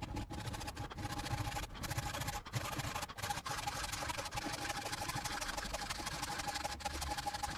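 Handsaw cutting through a thick timber block clamped in a bench vise, a steady run of rapid back-and-forth strokes rasping through the wood.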